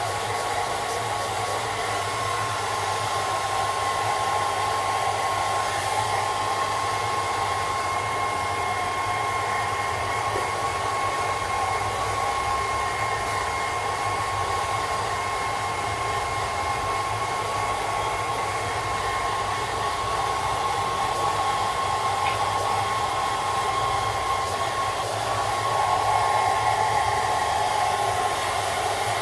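Hairdryer running steadily, an even rush of air with a thin whine, a little louder near the end.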